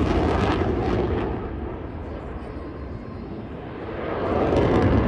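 Jet noise from a Eurofighter Typhoon's twin Eurojet EJ200 engines during its display. It fades about two seconds in and builds again near the end.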